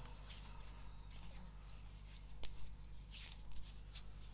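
Hands rubbing hand cream into the skin: faint, soft swishes of skin on skin, with one sharp click about halfway through.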